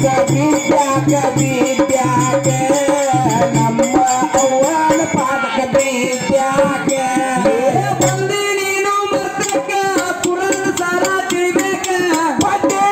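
Dollina pada folk music: men singing through a microphone over a large barrel drum (dollu) beaten by hand in a steady, quick rhythm.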